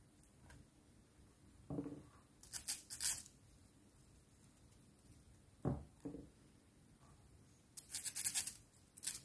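Glitter-coated foam balls handled over slime: two bursts of crackly scratching as the balls are rubbed together between the fingers, with a few soft, dull thuds as balls are pressed into the slime.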